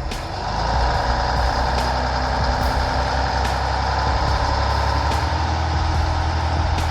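Heavy truck engine running steadily under load, with a faint regular tick a little more than once a second.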